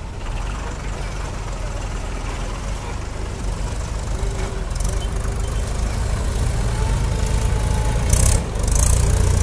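Diesel tractor engines running under load as the tractors churn through deep paddy-field mud. The low rumble grows louder toward the end, with a few short bursts of hiss.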